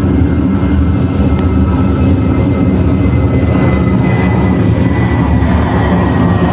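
Airliner climbing out after takeoff: loud, steady engine noise with a thin high whine that slowly drops in pitch.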